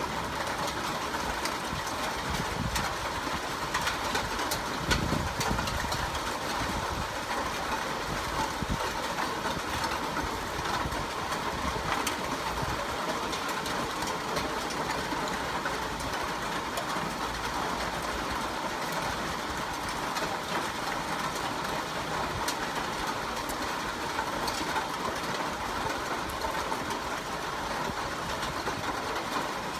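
Steady rain falling, a constant hiss dotted with fine ticks of drops striking nearby surfaces, with a brief low rumble about five seconds in.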